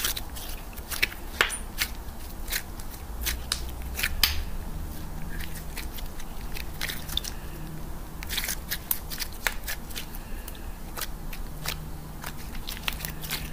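Soft homemade yellow slime being stretched, folded and squeezed by hand, giving off irregular sharp clicks and crackles.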